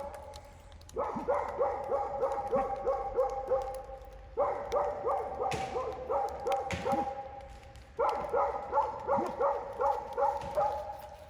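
An animal calling in three bouts of rapid, evenly repeated short pitched calls, about five a second, each bout lasting around three seconds.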